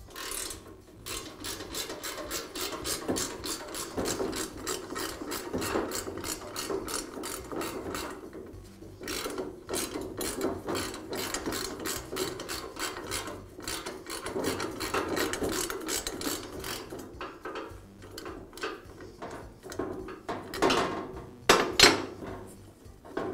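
Ratchet wrench clicking rapidly as it turns out the bolts holding a tile saw's post to its base, in several runs with short pauses. A few louder knocks come near the end.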